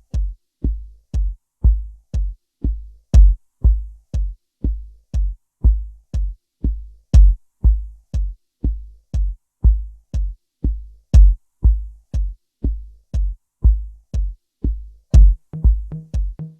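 Electronic background music: a drum-machine beat with a steady kick about two times a second and a sharper click on some beats, joined by a pitched synth bass line near the end.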